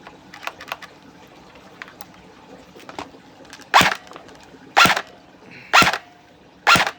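SRC SR36KSK G36 airsoft electric gun (AEG), fitted with an M120 spring, firing four single shots about a second apart, each a short whir-and-snap of the gearbox cycling the piston.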